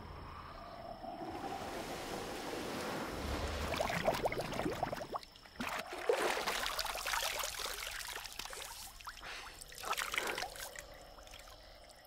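Water splashing and sloshing in several separate bouts, with quieter stretches between them.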